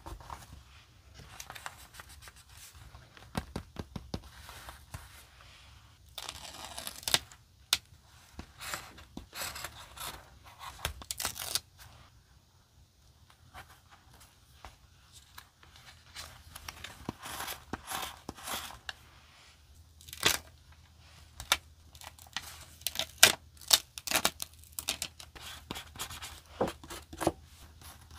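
Paper stickers being peeled from their backing and pressed onto a paper journal page: irregular crackling peels, paper rustles and small sharp taps as a thin pointed tool works the sticker edges. The sounds come in busy clusters, with a quieter spell in the middle.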